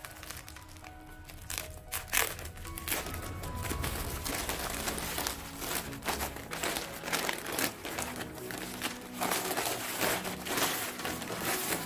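A black plastic courier mailer bag crinkling as hands pull it open and handle it, in many quick, irregular rustles. Soft background music plays underneath.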